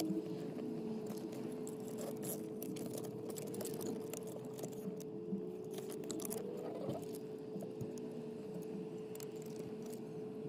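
Light clicks and rustles of car wiring and cable being handled and threaded behind an open dashboard, over a steady hum.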